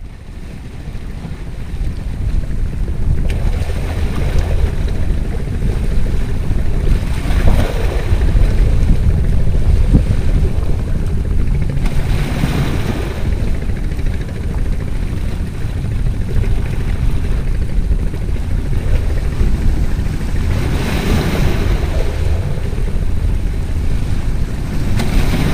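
Small sea waves washing over rocks, surging and hissing every few seconds, over a steady low wind rumble on the microphone.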